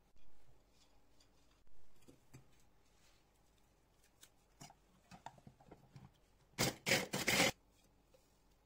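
Wafer biscuits being broken by hand into a plastic chopper bowl: soft knocks and small crisp crackles, then a louder dry crunching rustle lasting about a second near the end.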